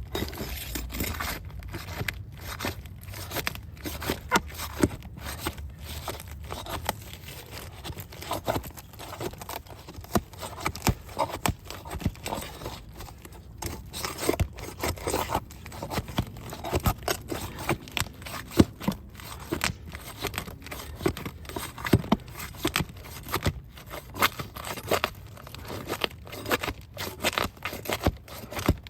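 Roof shingles being pried up and torn by hand: a continual irregular run of crackles, scrapes and sharp snaps as the shingles tear while being separated from the layer beneath.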